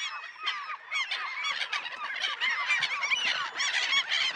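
A dense flock of seabirds calling, many short, overlapping calls at once.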